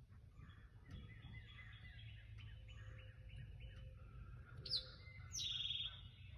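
Faint bird calls: a run of short chirps, then a sharp falling note and a louder buzzy call near the end, over a low background rumble.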